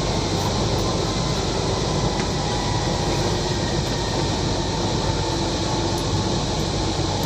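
Inside a Kochi Metro Alstom Metropolis train car: a steady rumble of the train running on the rails, mixed with the hum of the air conditioning and a few faint, steady whining tones.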